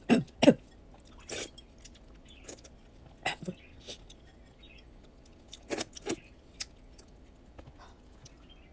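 Blue crab being eaten: sharp cracks and crunches of shell in scattered clusters, loudest in the first half-second and again a little after five seconds, with quieter chewing between.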